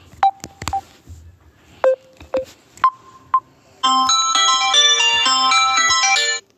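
Ringtones played on a phone's speaker: first a string of short steady beeps, each starting and ending with a sharp click, on different pitches; then about four seconds in, a bright synthesized ringtone melody plays for about two and a half seconds and cuts off.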